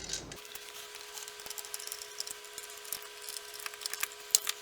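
Small irregular clicks and rustles of a wall light switch and its wires being handled and pulled from the electrical box, over a faint steady hum.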